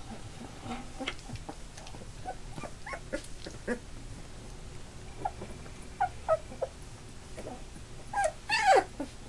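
Labrador retriever puppies almost three weeks old whimpering and squealing in short cries that fall in pitch, scattered throughout, with the loudest, longer squeals near the end.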